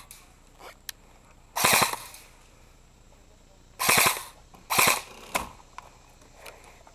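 Airsoft gun firing three short rapid bursts: one about a second and a half in, then two close together around four and five seconds.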